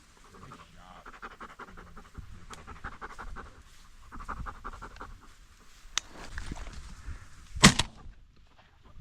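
Dog panting rapidly, in quick repeated breaths. A single sharp bang about three quarters of the way through.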